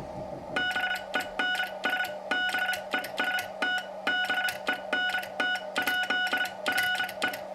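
Morse code sidetone, a beep near 700 Hz keyed fast in dits and dahs from a Vibroplex semi-automatic bug. Its dit spring is pre-tensioned with a pipe cleaner and a piece of foam, which keeps the dits clean at high speed.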